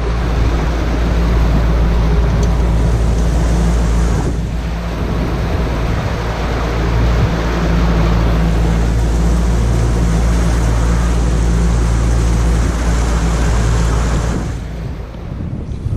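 Boat's motor running steadily at low trolling speed, a low hum with a rushing noise of wind and water over it. It fades down about a second before the end.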